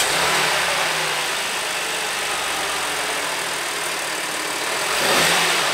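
2013 Audi S4's supercharged 3.0-litre V6 idling steadily just after catching on a cold start. There is no timing chain slap from the rear, which the owner takes to mean the chain tensioners are probably in good shape.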